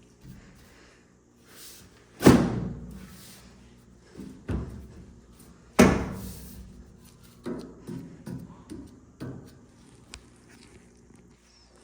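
Sheet-metal dryer parts being handled during reassembly: two loud clunks about three and a half seconds apart, each ringing briefly, among lighter knocks and taps, and a sharp tick near the end.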